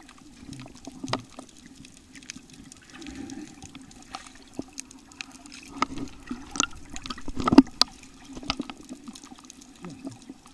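Muffled underwater water noise, a low steady wash, broken by scattered sharp clicks and knocks. The loudest knock comes about seven and a half seconds in.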